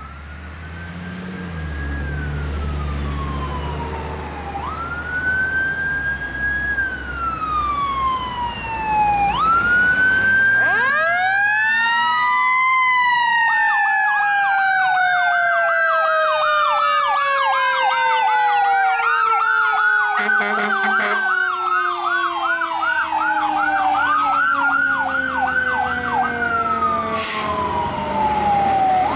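Fire engine sirens on a 2018 Pierce Velocity pumper running an emergency response. An electronic siren wails slowly over a low vehicle rumble. About ten seconds in, a second siren winds up steeply and then slowly winds down, while the electronic siren switches to a fast yelp.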